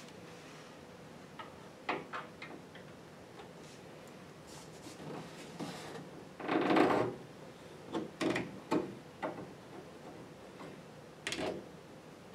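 Scattered small clicks and taps of a chrome tail-light bezel and its hardware being pressed into place against a car's rear body panel and fastened from inside the trunk, with a louder scuff of about half a second near the middle.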